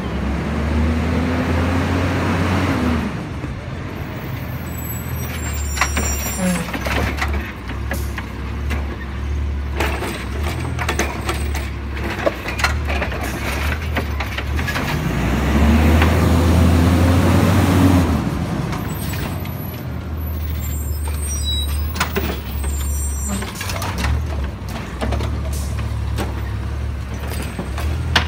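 Automated side-loader garbage truck collecting trash carts. Twice the engine revs up and falls back as the hydraulic arm lifts a cart, then clanks, knocks and high squeaks follow as the cart is dumped into the hopper and set back down. The engine runs steadily in between.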